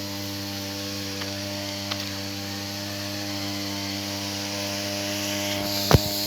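Brush cutter (grass-cutting machine) engine running at a steady speed, with a sharp knock near the end.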